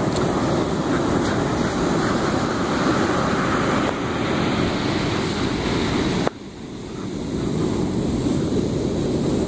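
Ocean surf breaking on a sandy beach, a steady rushing wash, with wind buffeting the microphone. The sound drops away abruptly about six seconds in and swells back over the next two seconds.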